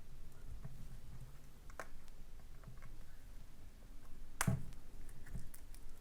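Faint handling sounds from opening a shrink-wrapped cardboard CD digipak, mostly quiet with a few small clicks and one sharper tap about four and a half seconds in.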